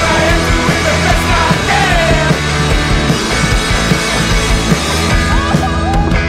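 Background rock music with singing.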